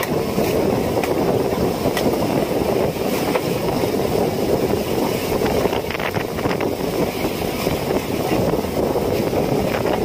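Fishing boat's engine running steadily, with wind noise on the microphone.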